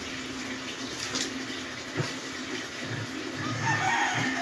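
A rooster crowing near the end, one drawn-out call ending in a held note, over a steady low hum and a few dull thumps.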